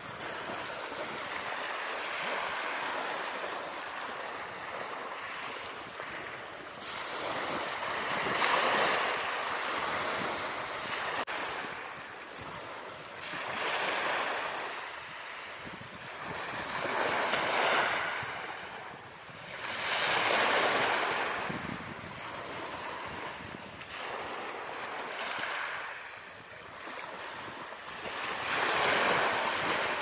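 Ocean waves sound effect: surf washing in, swelling and fading every few seconds.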